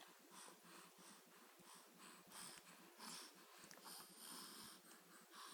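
Faint, quick snuffly breaths of a baby, a short puff about twice a second.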